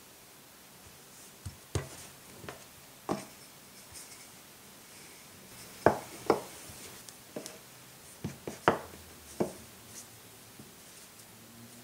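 A series of sharp, light knocks and taps from kitchen handling work, about a dozen spaced irregularly, with soft rubbing between them.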